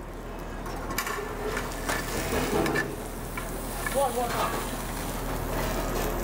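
A porterhouse steak fresh from the broiler sizzling on a hot metal platter, with a few sharp clinks of steel tongs against the plate and rack.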